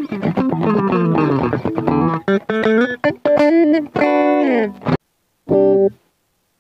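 Tagima TW61 offset electric guitar with P90 single-coil pickups played through an amp, a run of single notes and chords with several notes sliding down in pitch. The playing stops abruptly about five seconds in, followed by one short chord.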